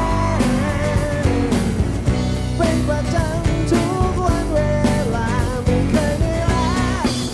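Rock music with a steady drum beat, a heavy bass and a lead melody line that bends and wavers in pitch.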